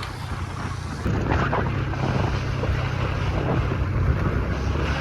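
Wind buffeting the microphone over the steady low hum of a moving vehicle's engine, getting louder about a second in.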